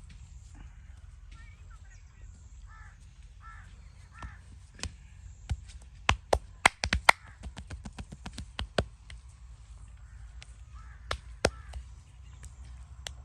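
A quick, irregular run of sharp slaps, hands striking the body in a percussive massage, densest in the middle with a few more strikes near the end. Crows caw in the background.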